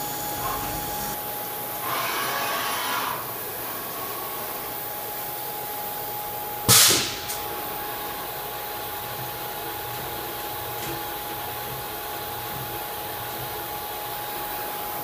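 2011 H.H. Roberts TW40 4-axis CNC vertical machining center running: a steady hiss of coolant spray under a steady whine. A louder noisy stretch comes about two seconds in, and a sudden loud burst about seven seconds in is the loudest sound.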